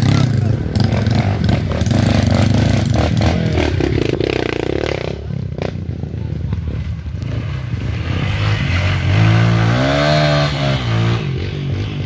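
Dirt bike engines running on a forest trail, with one revving up and back down about two-thirds of the way through.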